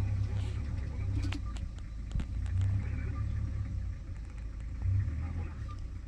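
Steady low rumble of an idling vehicle engine, with scattered faint clicks.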